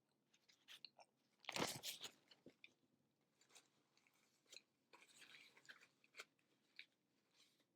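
Close-up chewing of a crunchy hard-shell taco: scattered small crisp crunches, with one much louder crunch about one and a half seconds in.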